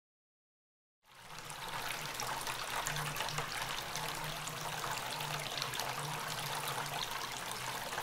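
Silence for about the first second, then a small bamboo tabletop fountain running: a thin stream of water falling from a bamboo spout into a bowl of pebbles, a steady trickle with a low hum underneath.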